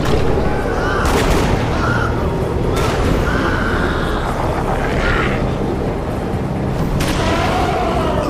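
A dense, loud layered soundtrack: deep booms, three sharp hits, and gliding cries over a steady rumbling noise.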